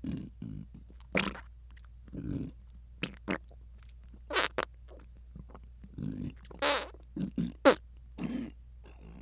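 Stomach rumbling: a run of about a dozen short, irregular bursts with brief gaps between them, the sharpest and loudest near the end.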